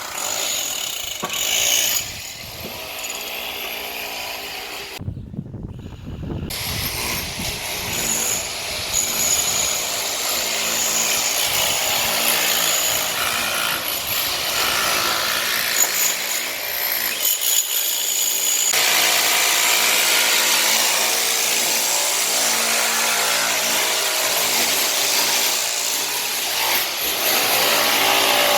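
Power tools cutting and working wood during building renovation, a continuous rasping run with a brief break about five seconds in.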